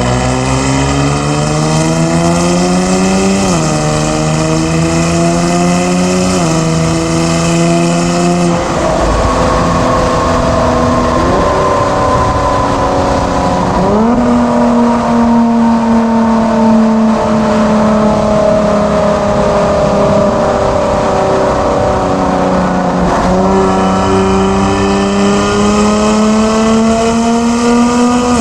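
Kia Stinger 3.3 twin-turbo V6 with a JSR Performance aftermarket exhaust, driving: the engine note rises through the gears with upshift drops about three and six seconds in, then settles to a lower note that slowly falls while cruising, and steps up in pitch near the end.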